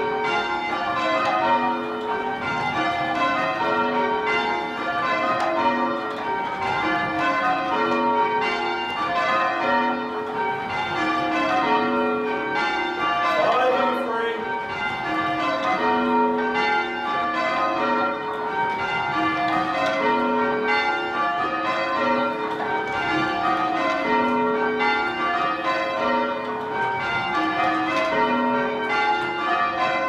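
Church tower bells change ringing, heard from the ringing chamber below the bells: an unbroken, even rhythm of bell strokes, each row of bells following the last in a regular repeating pattern.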